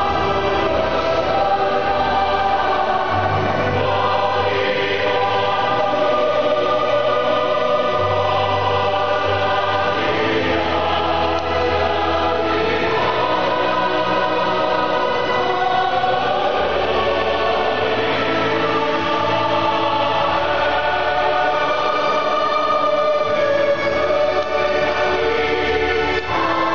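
A large mixed choir singing a psalm in eight parts, with sustained chords over organ and keyboard accompaniment whose low bass notes change every couple of seconds.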